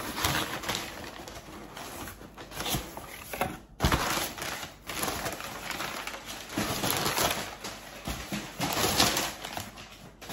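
Crumpled brown packing paper and cardboard flaps rustling and crinkling in uneven swells as the paper is pulled out of a delivery box.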